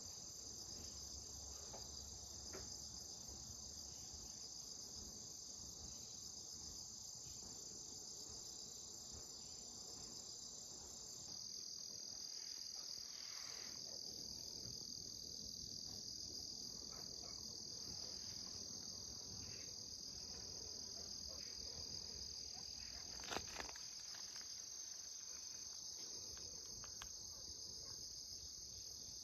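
Crickets trilling in a steady, continuous high-pitched chorus. The pitch drops slightly about a third of the way in, and there is one brief click about three quarters of the way through.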